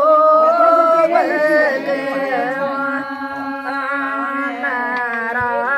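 Women singing a Haryanvi devotional folk song (bhajan) together, drawing out long held notes with no clear drumbeat.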